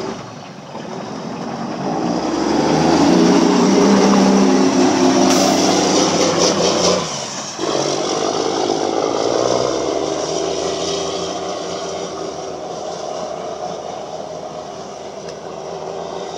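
Mack dump truck's diesel engine pulling hard as the truck climbs an icy hill, building up over the first few seconds. It drops away briefly about seven seconds in, then picks up again and slowly fades as the truck moves off up the road.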